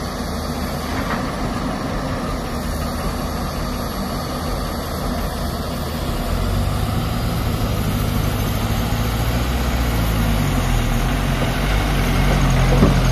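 The diesel engine of a loaded Toyota Dyna 130 HT dump truck runs steadily as the truck drives off with its load of sand. It grows louder from about halfway through as the truck comes close.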